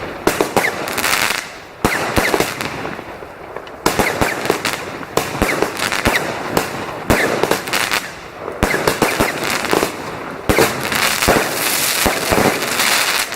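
Fireworks going off: rapid sharp bangs and crackling with hiss, in volleys that start anew every couple of seconds.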